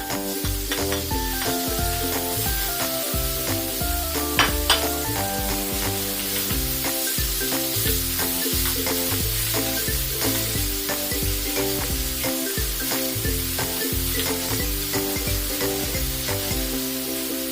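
Curry frying and sizzling in a pan while it is stirred, with small scraping clicks of the utensil and two sharp clanks about four and a half seconds in. Background music plays under it.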